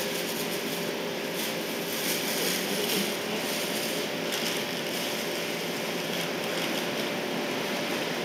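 Steady background noise, with a few faint rustles and ticks about one to three seconds in as fishing line is handled and threaded through a small swivel.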